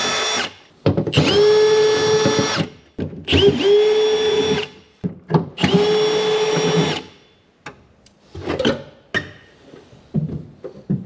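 Cordless drill boring through the car's sheet-steel floor pan, running in four short bursts of one to two seconds, the motor spinning up quickly to a steady whine each time. From about seven seconds in, light knocks and clatter as the drill is handled and set down on the metal floor.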